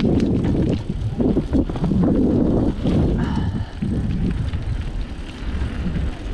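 Mountain bike running fast down a dirt trail: wind buffeting the camera's microphone in an uneven low rumble, with the tyres crunching over the ground and short rattling clicks from the bike over bumps.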